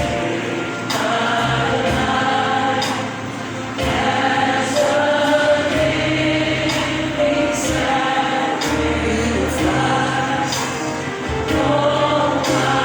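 Gospel worship song with a choir singing over bass and a steady beat.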